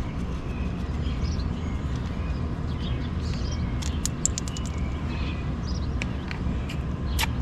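Steady low outdoor rumble with small birds chirping here and there, a quick run of light clicks about four seconds in, and one short sharp sound near the end.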